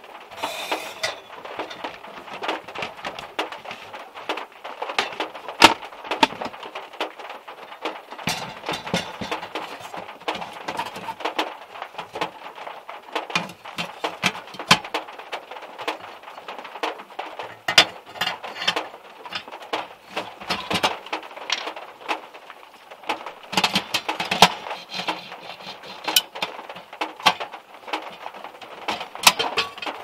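Rain pattering on a small car's roof and windows, heard from inside the cabin, with many sharp knocks throughout. Among them is the clatter of a portable gas cartridge stove being handled: its plastic carry case opened, its metal pan support fitted, and a metal kettle set on top near the end.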